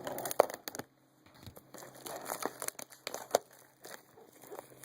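Packaging of a trading card blaster box crinkling and tearing as it is opened by hand, in irregular crackles with one louder crack about three seconds in.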